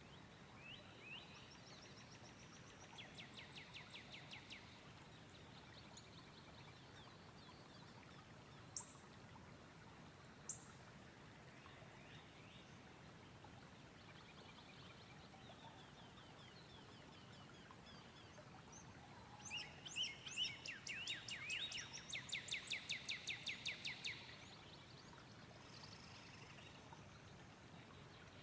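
Small songbirds singing: a few rapid trills of quickly repeated high notes, the longest and loudest about two thirds of the way through, with two short sharp chips in between, over a faint steady hiss.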